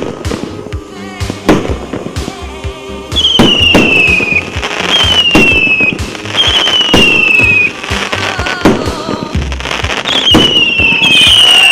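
A 100-shot "Super Orchestra" firework cake firing a rapid string of sharp bangs. From about three seconds in, shots come with falling whistles, about one every second and a half.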